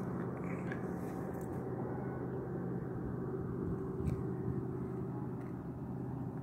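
A vehicle's engine idling with a steady low hum. There is a light knock about four seconds in.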